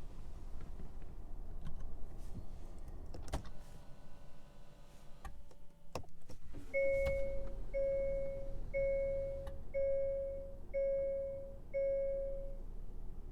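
A car's electronic warning chime beeps six times, about once a second, in a steady mid-pitched tone, starting about halfway through. It is preceded by a sharp click and some faint mechanical sounds from the 2020 Hyundai Sonata.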